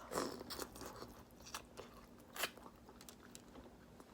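A person chewing food close to the microphone, with scattered small crunches and clicks and one louder crunch a little past halfway.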